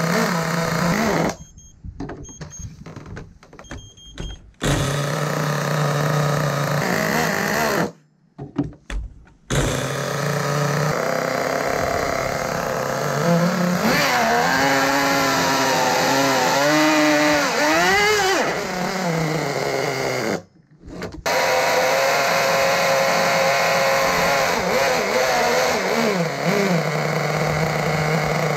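Small nitro (glow-fuel two-stroke) model engine of an RC snowmobile running at a steady idle. In the middle it is revved up and down several times. The sound breaks off briefly three times.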